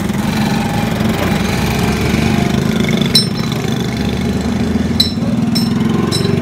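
A motor vehicle's engine running steadily at idle, with a few short sharp ticks about halfway through and near the end.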